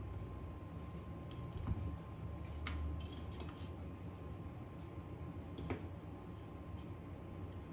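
Scattered light clicks and taps of small metal repair tools on phone parts, over a steady low hum and a faint steady whine.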